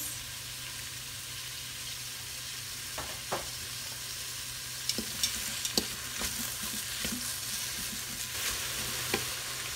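Sliced onions and garlic sizzling steadily in avocado oil in an Instant Pot's stainless steel inner pot on the high sauté setting. From about three seconds in, a plastic spatula taps and scrapes against the pot in scattered strokes as the onions are stirred.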